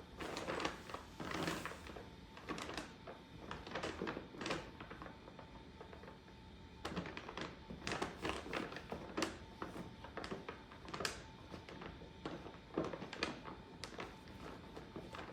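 Two kittens tussling: irregular soft thumps, taps and scuffling of paws and bodies, in small clusters with short gaps between.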